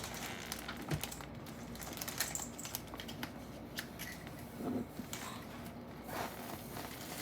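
Irregular light clicks, taps and crinkling of small objects being handled, such as food packaging and stick-on googly eyes.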